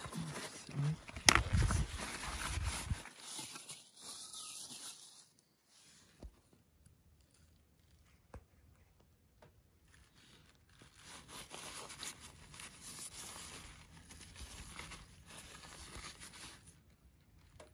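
Hands handling small metal tractor parts and rustling oily paper towels, with a sharp knock about a second in and a few small clicks. Near the end comes a steady rustle of paper towel wiping the seal housing.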